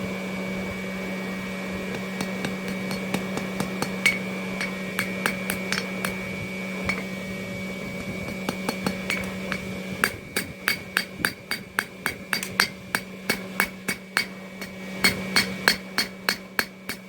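Hand hammer striking hot steel on an anvil while forging drawer pulls: scattered ringing blows at first over a steady hum, then quick, regular strikes about three a second from about ten seconds in, as the hum stops.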